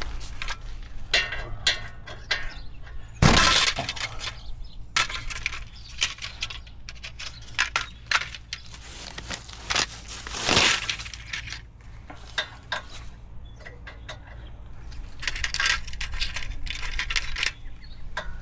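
Metal tools clinking and clattering in irregular short strokes, with a louder clank about three seconds in and another around ten seconds in.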